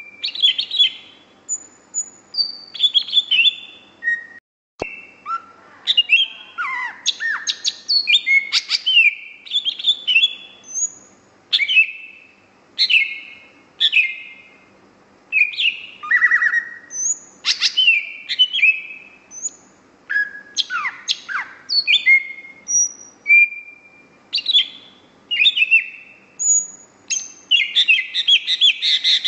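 Cucak hijau, a green leafbird, singing a long, varied run of sharp whistles and chirps with quick downward sweeps, breaking into a fast rattling trill near the end. A single click about a third of the way in.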